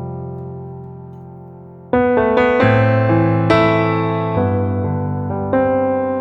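Background piano music, slow and gentle. A held chord fades away, then a fresh chord is struck about two seconds in, followed by a few more notes and another chord near the end.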